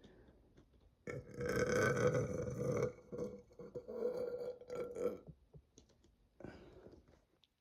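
A person burping: one long, loud burp starting about a second in and lasting about four seconds, strongest in its first two seconds and breaking up into choppy bits toward its end, followed by a fainter short burp near the end.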